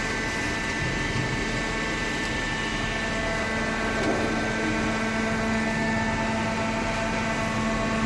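Automatic hydraulic paper baler running: its motor and hydraulic pump make a steady machine hum with a constant low tone over a broad hiss.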